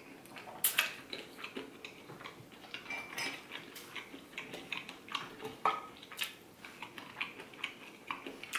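Eating sounds: wet chewing and lip smacks with scattered clicks of a fork against plates, a couple of them sharper.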